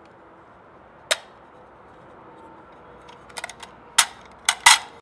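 Clicks and knocks of an AR-15 magazine being reassembled by hand: the spring and follower being worked back into the magazine body. One sharp click about a second in, then a quick run of louder clicks from about three seconds in.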